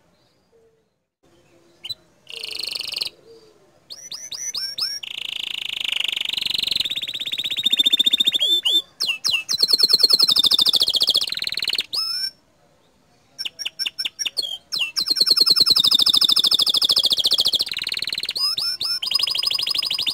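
Green domestic canary singing in long, fast trills and rapid-fire rolls of repeated high notes, the burst style called 'tembakan'. The song begins about two seconds in and pauses briefly about twelve seconds in.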